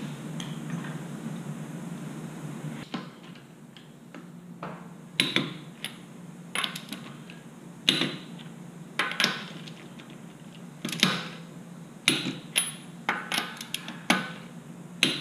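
Torque wrench being worked on a car wheel's lug nuts: a series of sharp metallic ratchet clicks, single and in short clusters, roughly every second or so from about five seconds in. A steady low hum runs underneath at first and stops about three seconds in.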